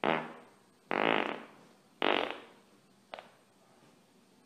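A man farting three times about a second apart, each one buzzy, starting sharply and trailing off, then a short faint one a little after three seconds in.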